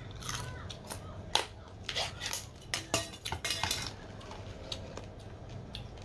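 A glass jar clinking and knocking against a serving plate as sauce-coated crayfish tails are shaken out of it: a quick run of sharp clatters over the first four seconds, then only a few faint ticks.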